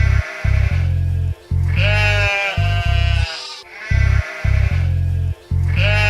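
Instrumental nursery-rhyme music with a bouncing bass line, and a sheep bleating over it, a quavering baa about every four seconds.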